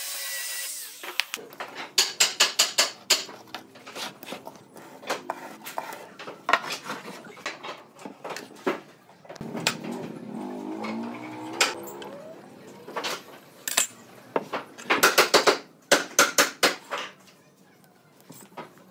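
Workshop handling noise: a sanding tool's motor dies away at the very start, then bursts of quick wooden and metal clicks and knocks as timber pieces and tools are set down and positioned, with a scraping slide of wood on the bench about halfway through.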